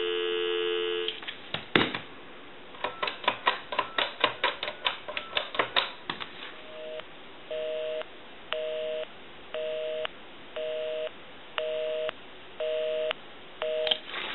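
Dial tone on the line of a Western Electric 2500 touch-tone telephone, cut off about a second in as a number is keyed: a quick run of touch-tone digit beeps with keypad clicks. Then a busy signal beeps about once a second, eight times: the number called is in use.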